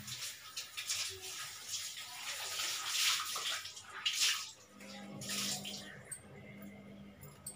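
Kitchen tap running and splashing into a steel sink while a pan is rinsed under it, the splashing surging several times. The water stops about six seconds in, and a few light clinks of utensils follow near the end.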